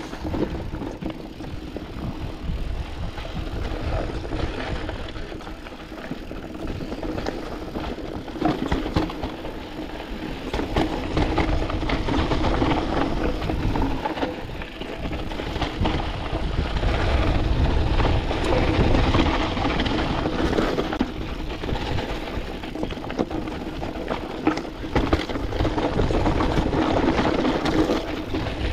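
Canyon Spectral AL 6.0 full-suspension mountain bike riding down a dusty, rocky singletrack: continuous tyre noise over dirt and stones with many small rattles and knocks from the bike, getting louder in the second half.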